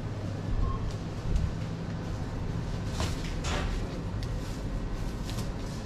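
Supermarket room tone: a steady low hum from refrigerated display cases and air handling, with a few light clicks and rustles about halfway through.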